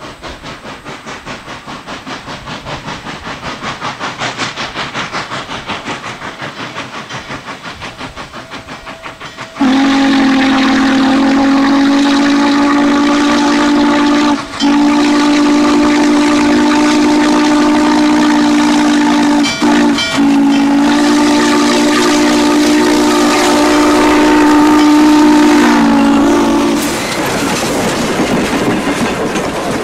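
Norfolk & Western Class J No. 611 steam locomotive approaching under power, its exhaust chuffing in a rapid, even beat that grows louder. About ten seconds in, its whistle sounds a long chord of several notes, broken by three brief gaps and held for about seventeen seconds. Near the end the passenger cars roll past with a clickety-clack.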